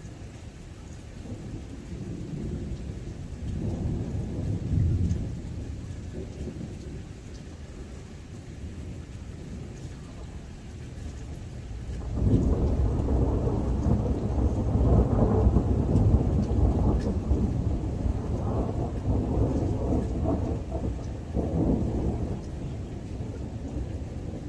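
Thunder rumbling: a smaller roll a few seconds in, then a sudden loud clap about halfway through that rolls on deep and heavy for about ten seconds before fading.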